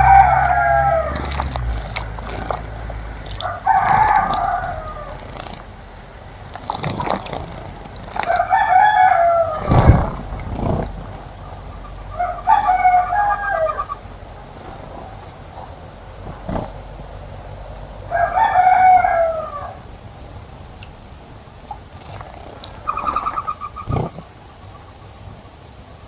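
Rooster crowing repeatedly, six crows of about a second each spaced four to five seconds apart. A sharp low thump comes about ten seconds in.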